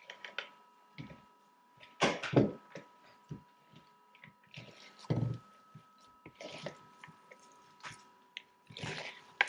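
Hands kneading ground sausage with grated cheese and chopped peppers, irregular wet squishing and a few louder knocks.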